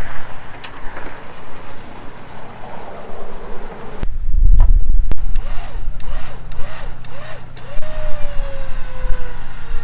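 Warn Zeon 10-S electric winch on the Jeep pulling its line in short bumps, each a brief rising-and-falling whine, then one longer run whose whine slowly drops in pitch as it takes up load, dragging a land anchor down into the sand. Wind gusts on the microphone before that.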